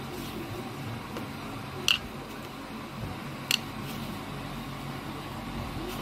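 Hands kneading soft cake dough in a bowl over a steady low hum, with two sharp clicks, about two seconds in and again a second and a half later.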